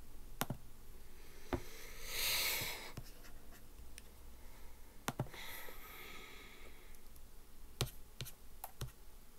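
Several sharp, scattered clicks of a computer mouse, with a soft hiss about two seconds in and another shortly after five seconds.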